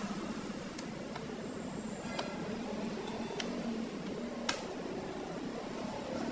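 About five short sharp clicks, a second or so apart, from small parts being handled while a laptop is opened up for a RAM upgrade, over a steady low hum.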